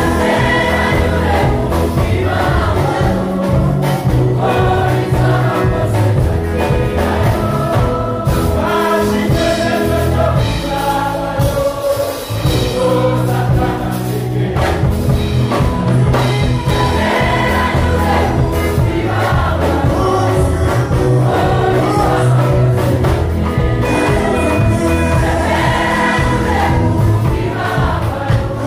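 Mixed choir of men and women singing a lively gospel song into microphones, over a steady low bass accompaniment.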